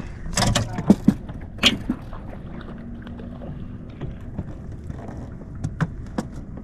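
Boat handling noise while a hooked fish is brought to the boat and landed: several sharp knocks and clatters, bunched in the first two seconds and again near the end, over a steady low rumble of wind and water.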